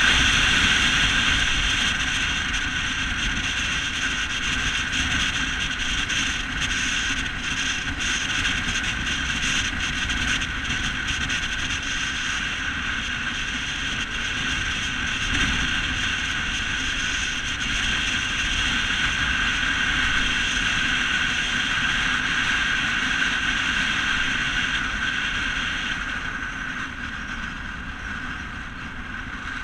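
Steady road, engine and wind noise from a car driving, easing slightly near the end.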